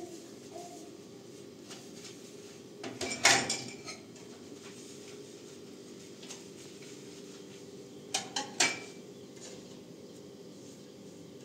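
Dishes clinking and clattering as they are handled at a kitchen sink: a loud clatter about three seconds in and three quick clinks about eight seconds in, over a faint steady hum.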